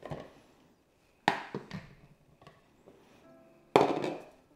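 Two sharp plastic knocks, the second the louder, from the ice-cream maker's pint container being handled and taken out of the machine. Quiet background music comes in near the end.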